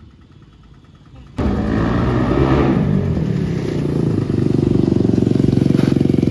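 KTM Duke 390 single-cylinder engine running loud through an aftermarket Akrapovic exhaust with the dB killer removed. It is faint at first, then suddenly loud about a second and a half in, with a rev that swells and falls, before settling into a steady, rapid exhaust pulse.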